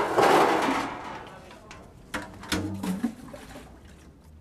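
Water splashing and sloshing in a plastic washbasin, loud at first and dying away within about a second, followed by a few small splashes and knocks as something is washed by hand in the basin.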